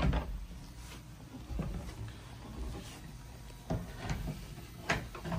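Scattered knocks, clunks and footfalls from climbing down a ladder through an open deck hatch into a boat's lazarette, with a louder knock at the start and a few more spaced a second or two apart.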